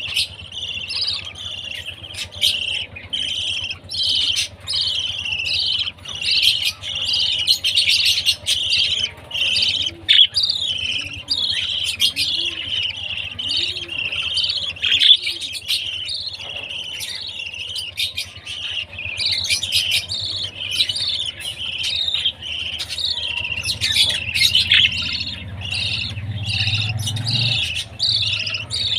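Budgerigar chicks chirping continuously in rapid, overlapping high calls, the begging chatter of baby budgies at feeding time. A faint steady low hum runs underneath.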